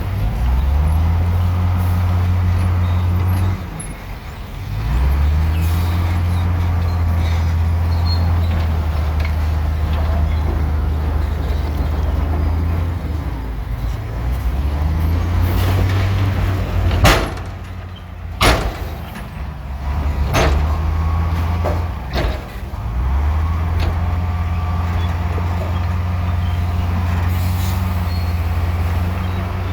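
Bulldozer's diesel engine running hard under load, easing off twice, with two sharp metallic clanks a little past the middle followed by a few lighter knocks.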